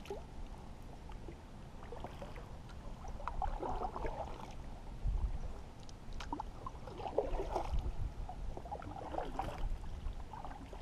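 Paddle strokes through calm creek water, the blade dipping, pulling and dripping in a few separate splashy strokes.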